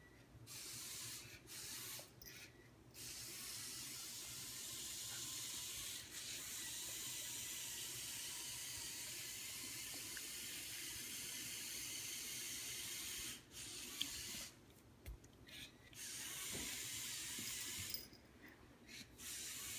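Electric drive motors and gearing of a remote-controlled LEGO Technic crawler, whirring with a steady hiss-like sound that cuts out and starts again several times as the crawler stops and drives on.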